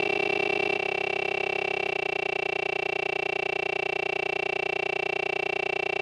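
A digitally processed, stutter-looped sound forming a steady buzzing drone of several held tones with a rapid even flutter. Its tone shifts slightly about a second in and again near two seconds.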